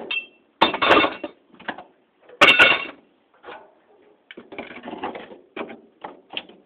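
Cast-aluminum ceiling fan parts tossed into a scrap bin, clanking with a metallic ring twice in the first three seconds. Lighter scattered clicks and rattles of small metal parts follow.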